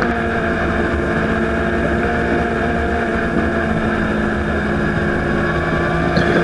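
Aprilia Tuono V4 1100 Factory's V4 engine running at high, fairly steady revs as the bike is ridden through fast corners, with wind rushing over the microphone.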